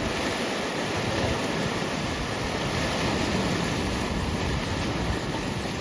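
Heavy surf from a typhoon-driven sea mixed with strong wind, a steady rush of noise with wind buffeting the microphone.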